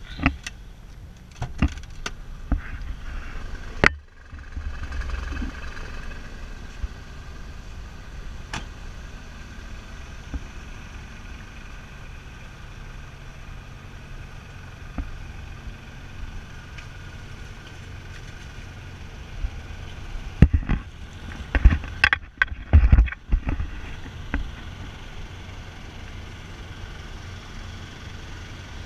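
Steady low drone of a river car ferry's engine. There are a few sharp knocks in the first four seconds and a cluster of heavy bumps about 20 to 23 seconds in.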